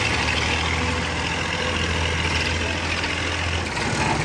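Tractor's diesel engine running steadily at a low idle, its note rising as it speeds up near the end.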